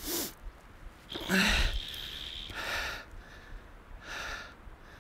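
A man breathing hard and fast in excitement while fighting a hooked fish, a breath every second or so, with a short grunting voice about a second and a half in.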